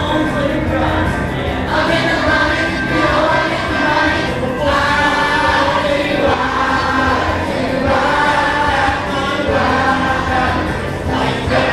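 Music with a group of voices singing together over the accompaniment.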